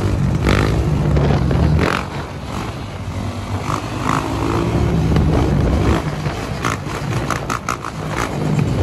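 Quad bike engine running and revving up and down while the quad is held in a wheelie at road speed, louder in the first two seconds, with short bursts of noise in the later seconds.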